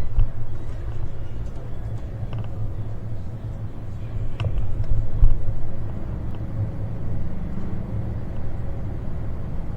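Aria Express tram running, a steady low rumble with a few light knocks, the loudest about four and a half seconds in.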